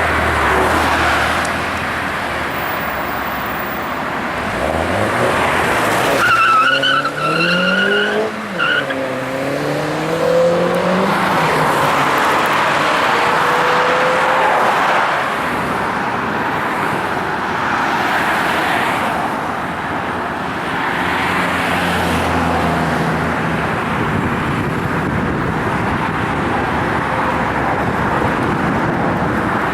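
Mini John Cooper Works GP's turbocharged four-cylinder engine revving hard in a burnout and acceleration, its pitch rising several times, with tyres screeching as they spin for a few seconds about a quarter of the way in and a steady loud rush of engine and tyre noise throughout.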